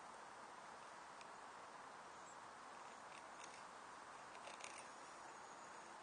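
A few faint scraping strokes of a Jääkäripuukko knife blade shaving curls down a split stick of wood, carving a feather stick; the strongest stroke comes about four and a half seconds in, over steady background hiss.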